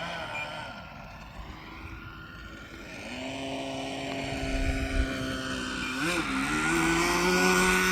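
RC plane's motor and propeller droning in flight. Its pitch glides as the plane passes, then steps up about three seconds in and again near six seconds, growing louder toward the end as throttle is added and the plane comes nearer.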